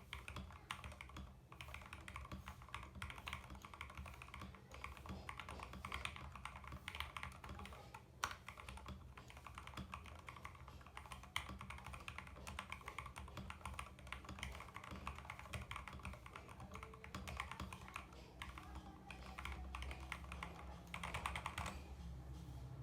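Continuous fast typing on a CIY Tester 68 mechanical keyboard: a dense, irregular run of key-switch clacks, over a low steady hum.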